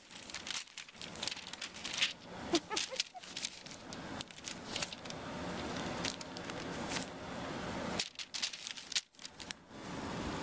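Glossy paper coupon inserts crinkling and rustling under a kitten moving over them, with irregular crackles and clicks.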